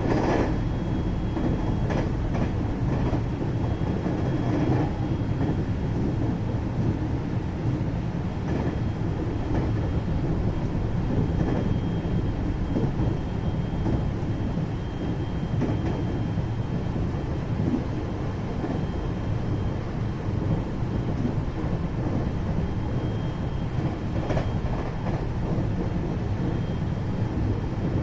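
Interior running noise of a JR-design 521-series electric multiple unit, heard inside the motor car: a steady rumble of wheels on rail while under way. There are a few sharper knocks over the track at the start, around 2 and 5 seconds in, and again about 24 seconds in.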